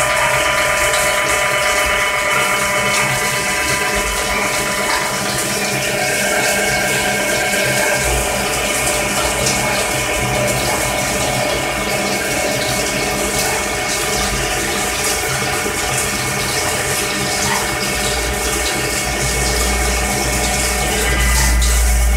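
CNC slant-bed lathe machining under flood coolant: a steady rush of coolant spraying onto the spinning chuck and workpiece, with the steady whine of the spindle and drives. A deep low rumble grows stronger over the last few seconds.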